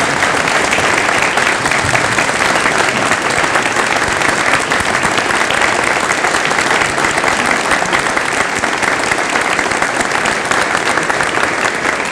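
A large audience applauding steadily, many hands clapping at once: a standing ovation at the close of a speech.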